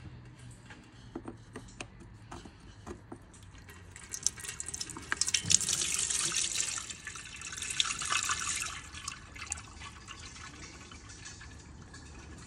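Gearbox oil pouring and splashing from the drain hole of a ZF automatic transmission's oil pan into a drain container as the drain plug comes out, loudest from about four to nine seconds in, then easing to a steady trickle. A few light clicks come first, as the plug is worked loose.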